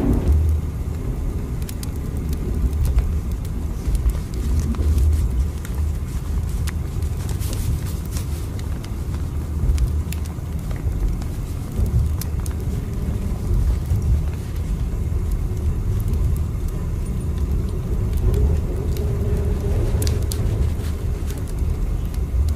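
Train running: a steady low rumble with faint scattered clicks and rattles.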